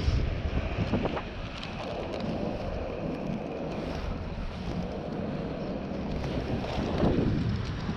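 Inline skate wheels rolling over asphalt with a steady low rumble, mixed with wind buffeting the microphone. The sound swells louder near the start and again near the end.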